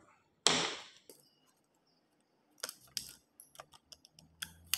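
Scissors cutting through two stacked sheets of thin soda-can aluminium, a run of sharp clicks and crackles that starts a little past halfway. About half a second in there is a brief crinkle of the thin aluminium sheet as it is handled.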